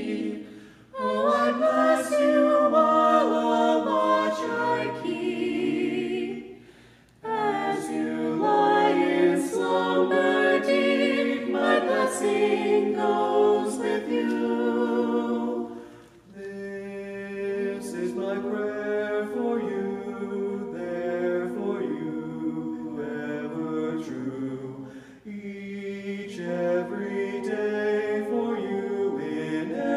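A mixed vocal quartet of two women and two men singing a cappella, with short pauses between phrases.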